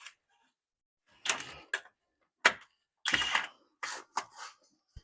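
Ratchet wrench clicking and metal clinking in several short spurts as a hub assembly mounting bolt is worked loose.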